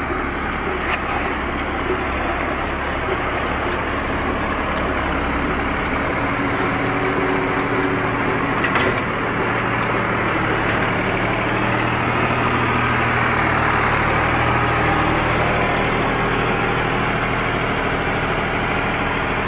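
Tractor engine running steadily while driving a round baler, with the machine noise continuous throughout. The engine note changes about six seconds in.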